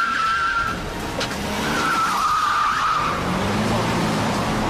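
Tyres of a Mercedes-Benz 190 saloon squealing as it corners at speed: a short squeal at the start, then a longer one, with the engine revving up near the end.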